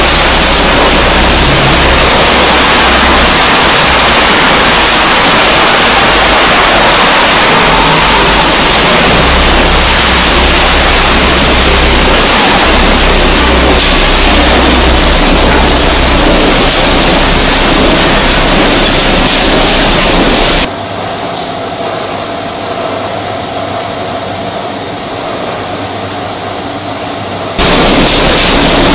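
E-waste recycling line running: a loud, steady din of machinery with shredded electronic scrap pouring and moving over vibrating conveyors and separators. About two-thirds of the way through it becomes noticeably quieter and duller for about seven seconds, then returns to full level.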